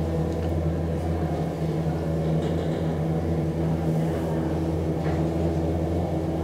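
A 1974 DEVE hydraulic elevator's pump unit humming steadily as the car travels in the shaft, with a few faint rattles from the car.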